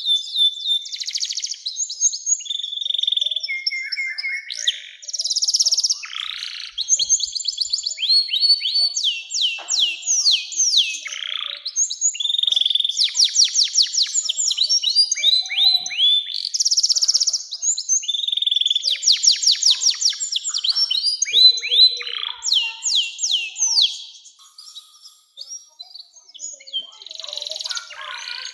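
Domestic canary singing a long song of rolling trills: runs of quick downward-sweeping notes repeated many times, with a brief pause near the end.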